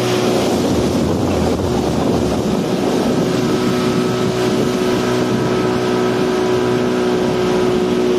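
Small speedboat's engine running steadily at an even pitch while under way, with wind noise on the microphone.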